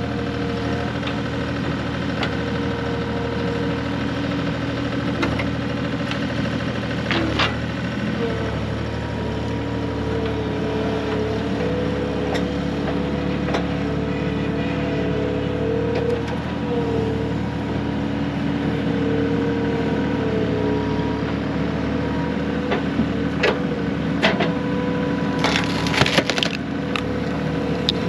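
Pieces of firewood knocking and clattering over a steadily running engine, with a quick run of sharp cracks near the end.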